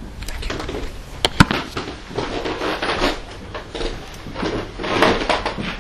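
Rustling and handling noise with many small clicks and a couple of sharp knocks a little over a second in.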